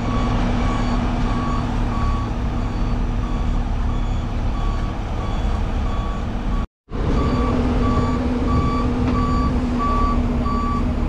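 Mobile boat hoist (travel lift) running with a steady engine hum while its warning beeper sounds about three beeps every two seconds as it moves and lowers the boat. The sound drops out for a moment a little past halfway, then the same hum and beeping go on.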